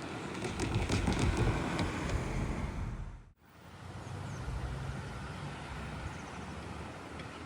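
A vehicle passing close by, loudest about a second in, with a quick run of clicks. It cuts off abruptly about three seconds in and gives way to a steadier low hum of traffic.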